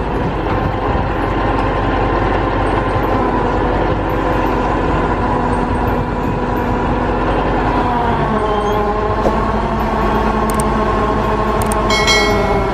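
Truck-mounted mobile crane's diesel engine running steadily under load as it lifts, its pitch shifting slightly about eight seconds in. Near the end a few sharp clicks and a short bright ringing sound.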